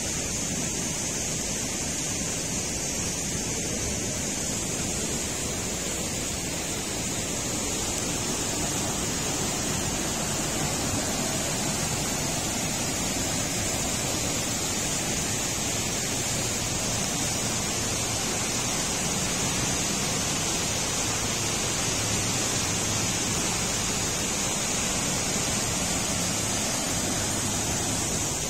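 Steady rush of the Petanu River's water flowing through a narrow rock gorge, with an even high hiss over it.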